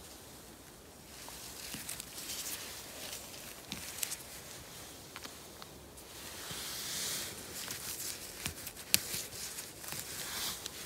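Footsteps and rustling on a mossy forest floor strewn with leaves and twigs, with scattered small clicks. The sharpest click comes about nine seconds in.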